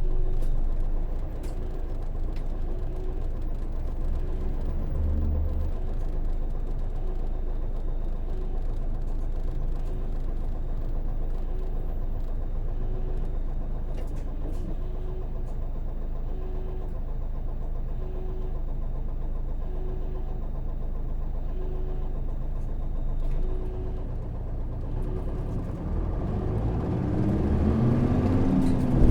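Interior running sound of a Hino PJ-KV234L1 city bus, its 6HK1 diesel engine and the road noise going steadily, with a soft tone repeating about once a second through most of it. Near the end the engine speeds up and then drops back, pitch rising and falling.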